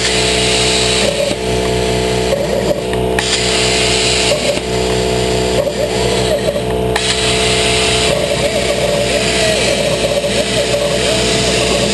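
CNC plasma cutter cutting sheet steel: the hiss of the plasma arc stops and restarts several times as the torch pierces and cuts separate shapes. Underneath is a steady machine hum, with short gliding whines from the gantry drive as the torch moves.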